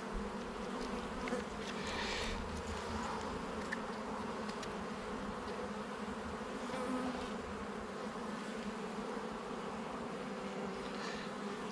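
Honeybees humming steadily around an open hive, a continuous even drone of many bees.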